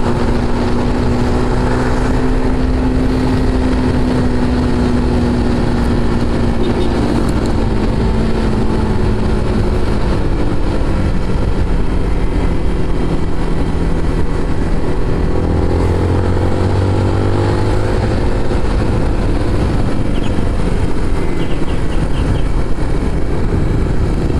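Motorcycle engine running at cruising speed while riding, its pitch easing down over the first ten seconds and climbing again in the second half, under steady wind rush.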